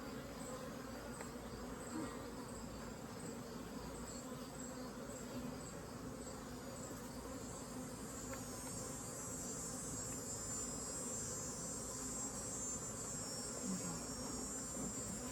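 Honeybees from an opened Layens horizontal hive buzzing in a steady hum. A faint high chirp repeats about once a second over it.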